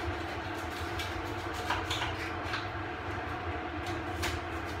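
Knife cutting through a crispy puff-pastry pizza on a metal baking tray: a few short crunches and scrapes about two seconds in and again near the end, over a steady low hum.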